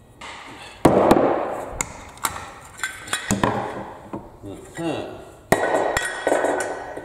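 Knocks and clatter of vacuum-cleaner parts being handled and set down during dismantling, with some muttering in between.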